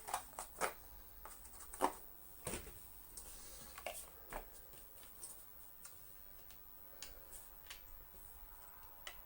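Scattered light clicks and knocks of plastic vacuum-cleaner parts and small screws being handled, about one every second, irregular.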